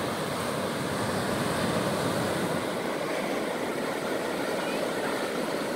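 Ocean surf washing onto a sandy beach: a steady, even rush of breaking waves.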